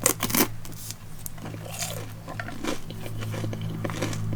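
Close-up biting and chewing of crunchy fried food: a few crisp crunches in the first half second, then softer chewing with small clicks. A steady low hum runs underneath.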